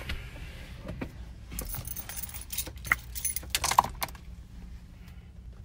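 Keys jangling in a run of metallic clinks for a couple of seconds, over the low rumble of a car.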